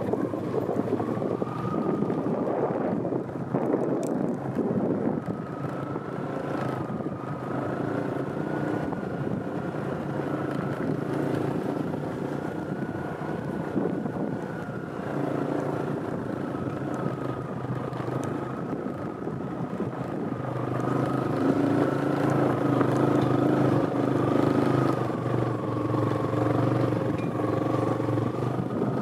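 Motorbike engine running while under way, its pitch holding fairly steady and wavering slightly; it grows louder about two-thirds of the way through.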